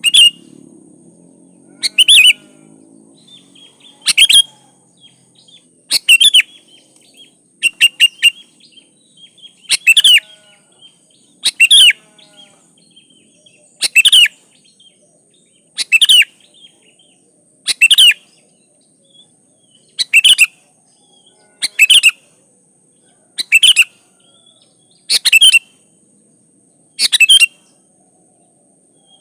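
Sooty-headed bulbul (kutilang) singing a short loud phrase over and over, about once every two seconds, with fainter chirps in between.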